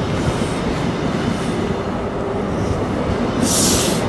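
Passenger train coaches passing close alongside the platform, their wheels running on the rails with a steady rolling noise. A brief hiss sounds near the end.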